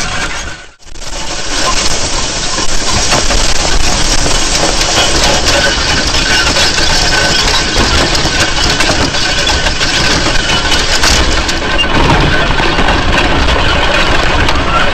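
Engine of a vehicle towing a sled on a rope, running steadily under load, with a short dropout about a second in.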